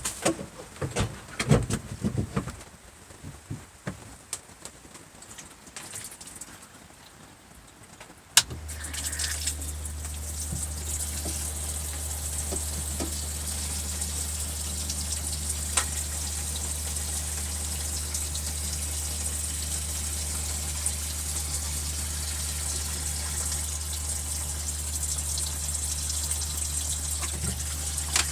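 Knocks and clicks of tubing being worked onto a plumbing fitting, then about eight seconds in a click and a boat's freshwater pressure pump starts running with a steady hum. Water hisses from the joint, which is not sealing.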